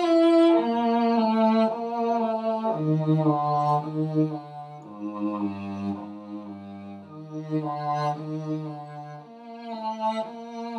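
Solo cello playing slow, sustained bowed notes of a string-crossing exercise, each note held a second or two. The line steps down across the strings to its lowest note around the middle, then climbs back up to the starting pitch. It is recorded through a laptop microphone.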